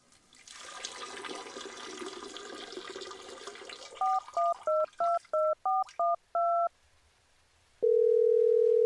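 Phone keypad touch-tones (DTMF) as a number of about ten digits is dialled in quick beeps, followed after a short pause by a steady ringing tone on the line as the call connects. A faint rushing noise comes before the dialling.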